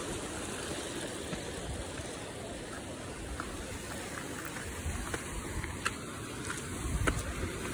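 Steady rush of flowing river water, with a few light steps on the dirt trail near the end.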